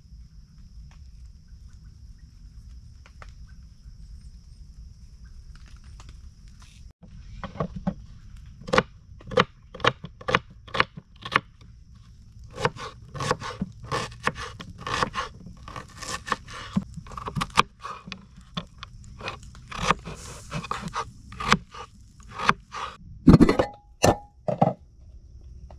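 Camp cooking sounds: after a steady low rumble, a run of sharp scraping and crunching strokes, about one or two a second, begins about seven seconds in.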